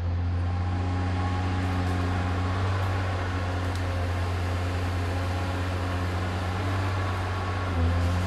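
Diesel engine of a Neuson Ecotec 242 HVT tracked harvester running steadily while the machine swings round: a constant deep drone with a few steady tones above it, growing a little louder near the end.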